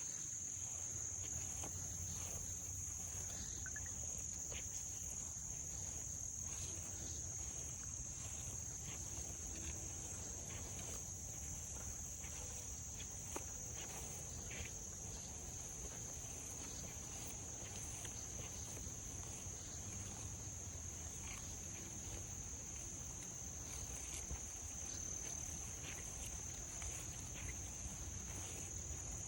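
Steady high-pitched insect chorus, cricket-like, holding one even pitch throughout, over a low outdoor rumble. Faint scattered crunches of footsteps on the trail come through now and then.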